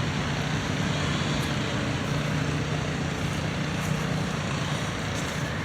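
A steady low mechanical hum under a constant wash of outdoor noise, with no distinct knocks or events.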